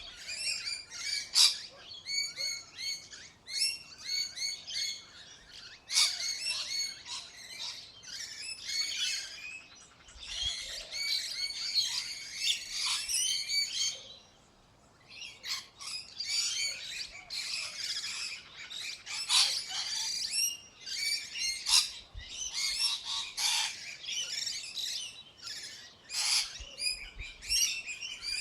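Small birds chirping and twittering rapidly and almost without pause, with a brief lull about halfway through.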